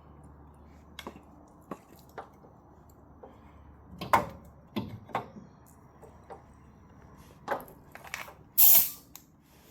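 Compressed-air hose being hooked up to a pneumatic nail gun: several light clicks and knocks of handling, then near the end a short, loud hiss of air as the quick-connect coupler is pushed on.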